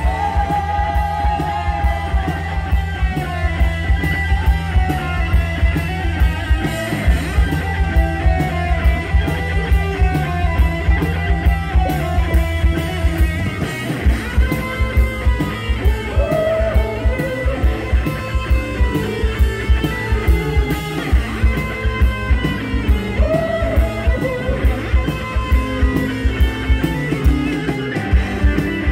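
Live rock band playing an instrumental passage on electric guitar, bass, keyboard and drum kit. About halfway through, the low end changes to a pulsing, driving rhythm.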